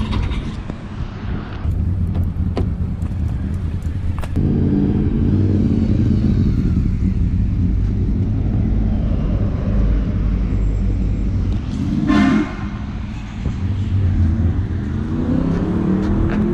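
A motor vehicle engine running nearby, starting about four seconds in. Its pitch rises near the end. Wind buffets the microphone, and a short horn-like tone sounds about twelve seconds in.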